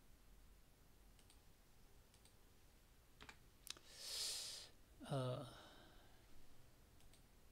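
A few faint computer mouse clicks, then a breathy exhale about four seconds in and a short voiced 'mm' just after it.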